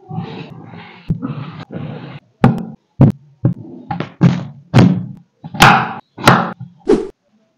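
Kitchen knife cutting potatoes into chunks on a wooden cutting board: a run of sharp knocks as the blade goes through each potato onto the board, about two a second in the second half.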